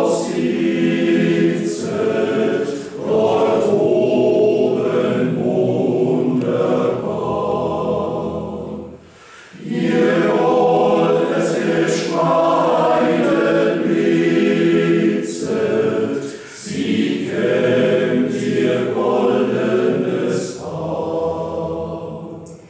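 A mixed choir of men and women singing in long held phrases, with brief pauses between them.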